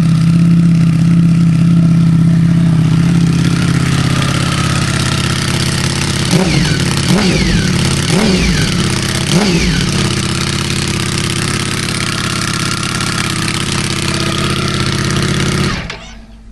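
Ducati Panigale V4S V4 engine with an Akrapovič half-system exhaust idling, then several quick throttle blips about six to ten seconds in, each rising and falling in pitch. It settles back to idle and is switched off shortly before the end.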